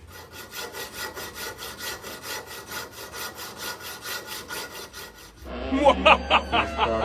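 Hacksaw cutting through a bolt, in quick even strokes of about five a second. A little over five seconds in the sawing stops and a louder pitched, wavering sound takes over, with a low hum under it.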